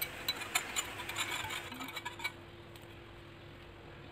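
Light, rapid clinks and ticks of a small glass bowl knocking against the rim of a glass mixing bowl as powdered sugar is shaken out of it, a dozen or so over about two seconds, then they stop.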